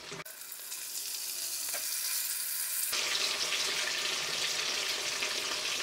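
Whole spice-marinated fish sizzling in hot oil in an iron kadai. About three seconds in, with the fish turned over onto its unfried side, the sizzle becomes much louder and then stays steady.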